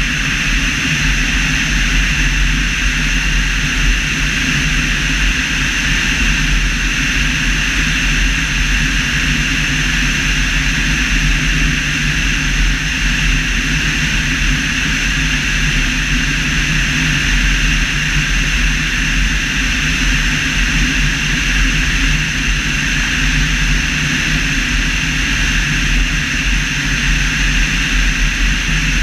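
Steady, loud rush of airflow over a tail-mounted camera and the airframe of an Evektor EV-97 Eurostar microlight gliding at about 50 mph with its engine stopped, a low rumble underneath and a high hiss on top.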